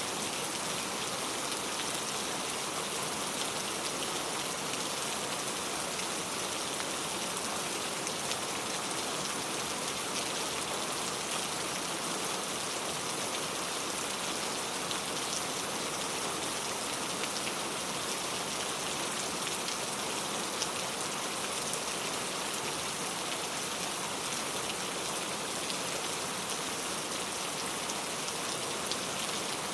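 Steady rain falling, a dense even hiss with the patter of many individual drops.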